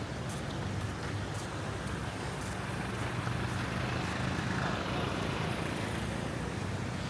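Street traffic: a motor vehicle's engine hum and tyre noise swelling as it passes, loudest about four seconds in, then easing off.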